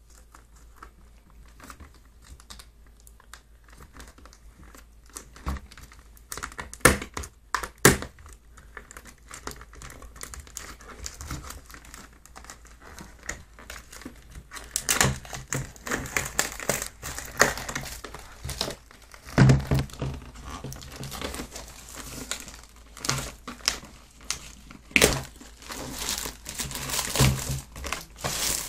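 Cardboard packaging being pulled open, with scattered ticks and two sharp snaps in the first half. From about halfway, the plastic wrap around the tin crinkles steadily as it is handled and drawn out.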